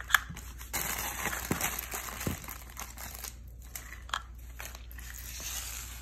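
Plastic toy wrapping crinkling as it is handled and unwrapped by hand, with many short irregular crackles.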